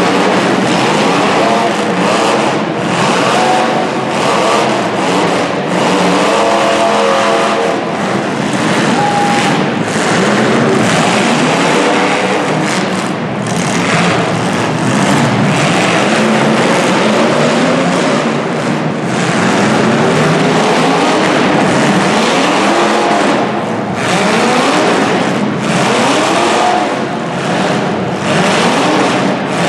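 Engines of several 1980s full-size demolition derby cars revving up and down hard, overlapping in a continuous loud din.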